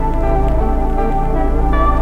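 Ambient electronic background music with held synth notes over a steady low bass.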